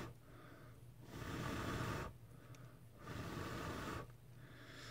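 A person breathing near the microphone: two slow breaths of about a second each, with quiet gaps between.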